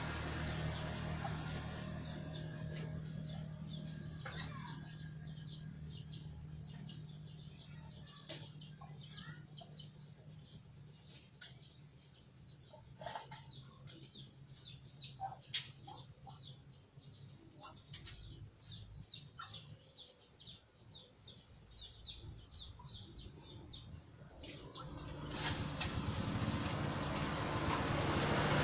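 Small birds chirping in quick repeated high notes, with a few sharp clicks among them. A motor vehicle fades away at the start, and another grows loud toward the end.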